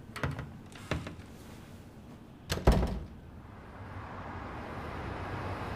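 A door shutting with a single sharp thud about two and a half seconds in, after a few light clicks, then a steady hiss that slowly grows louder.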